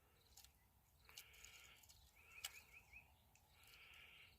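Faint birdsong, near silence: short repeated songs with a quick run of chirps in the middle, and a couple of soft clicks.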